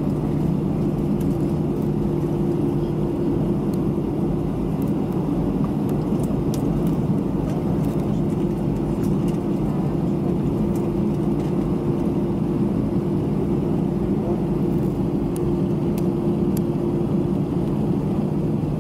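Jet airliner's engines running at idle during taxi, heard inside the passenger cabin as a steady hum with two held tones over a low rumble.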